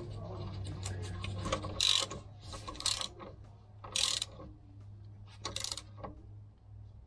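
Ratchet wrench with a 17 mm socket clicking in several short bursts as it turns the bolt at the lower mount of a rear shock absorber.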